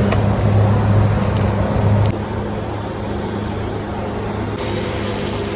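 Semi-automatic pipe welding equipment running: a steady low hum under a dense, rough crackle. The hum drops in level about two seconds in.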